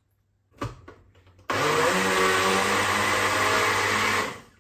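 Electric blender switched on about a second and a half in, running steadily for nearly three seconds as it blends a purée, then switched off. A single knock comes just before it starts.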